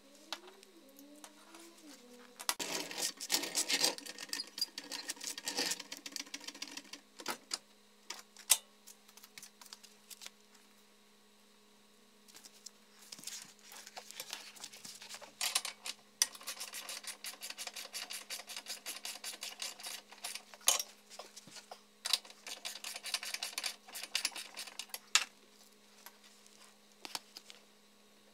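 Hand ratchet wrench clicking in long quick runs with pauses, driving up bolts on a car's front subframe and control arm, over a steady low hum.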